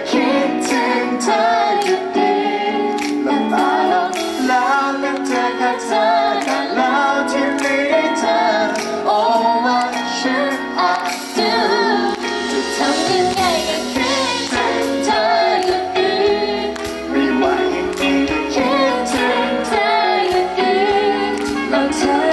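Live band music with a woman singing lead in a duet with a male singer, over electric guitar and a steady drum beat.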